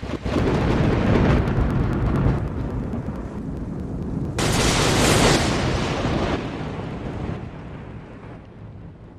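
Thunderstorm sound effect: rumbling thunder over steady rain, with a sharp thunderclap about four seconds in, then the rumble dies away.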